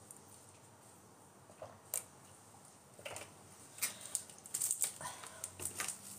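Plastic water bottle being handled, with sharp clicks and crinkling of the plastic, thickest about four to five seconds in.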